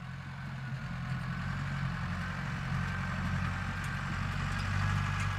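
Tractor engine running steadily, fading in.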